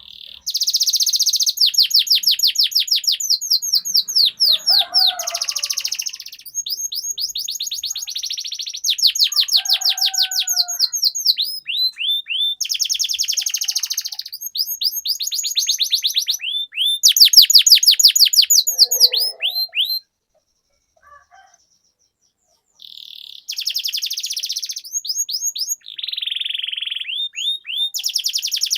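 Domestic canary singing long rolling trills: fast runs of repeated notes, phrase after phrase, stopping for about three seconds a little past two-thirds of the way through. A few fainter, lower calls come in between the rolls.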